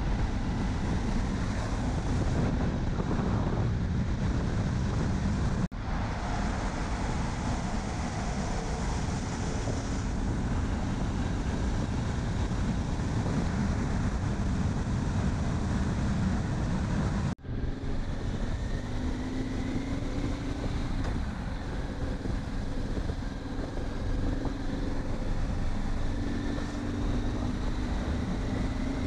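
Motorcycle ridden at road speed: heavy wind noise on the microphone over the engine's steady drone. The sound drops out for a moment twice, about a third and about two thirds of the way through.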